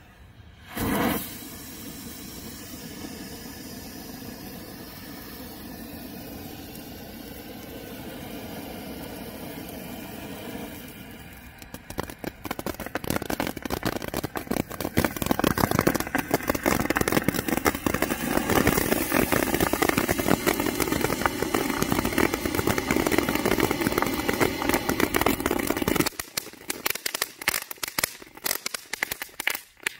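Bazooka Torch handheld firework tube going off: a brief loud burst about a second in, then a steady hiss as its fuse burns and smoke pours out. About twelve seconds in it breaks into dense crackling as it throws sparks, thinning to scattered pops near the end.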